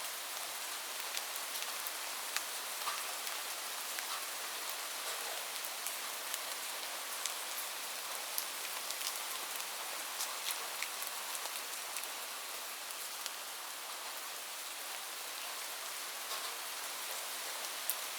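Steady rain: an even hiss of rainfall with scattered close drops ticking sharply on a surface.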